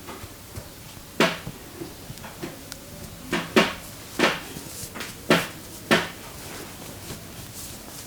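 Hands slapping the body in percussive massage strokes: six sharp, irregular slaps between about one and six seconds in, two of them in quick succession.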